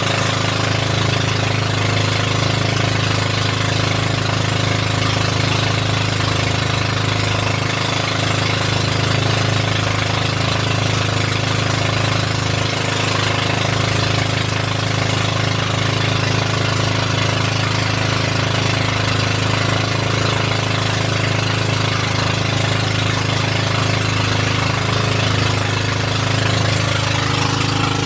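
Boat engine running steadily at a constant speed, with a strong low hum and a rattly, knocking edge.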